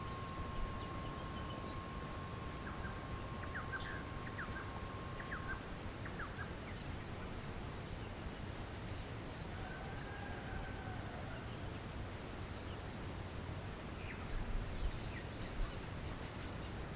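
Bush ambience: scattered bird calls, short chirps and high ticking notes, with one arching whistled call about ten seconds in, over a steady low rumble. A thin steady tone runs through the first five seconds or so and then stops.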